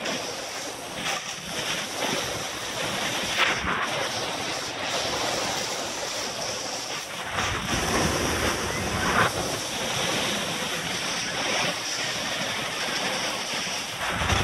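Snowboard sliding and scraping over snow through linked turns, a steady hiss with swells at each turn. Wind buffets the microphone on the pole-mounted camera, with a low rumble that grows stronger about halfway through.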